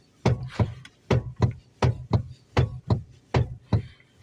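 Knocking in the electric power steering of a Lada Vesta NG: about ten sharp knocks in loose pairs, roughly two a second. This is the fault knock that the owner traces to the power steering unit.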